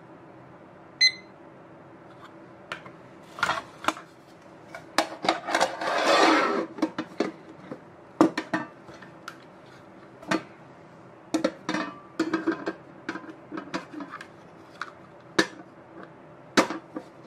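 A digital kitchen timer gives one short beep. Then the metal lid of a Pullman loaf pan scrapes as it slides on, and the pan and lid clink and knock in a series of sharp taps while they are handled.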